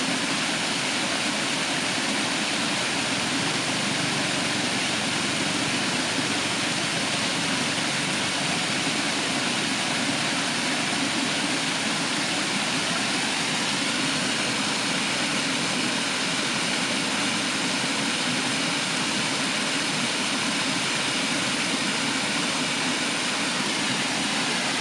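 Waterfall: the steady rush of falling water, an even, unbroken noise.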